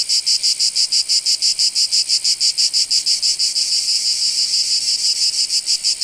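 Cicadas calling: a loud, high buzzing chorus that pulses about five or six times a second, the pulses running together somewhat for a couple of seconds in the middle.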